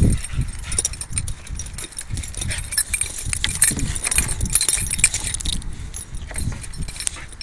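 Two boxer dogs play-wrestling: irregular low growls and grunts with scuffling, and metal collar tags jingling.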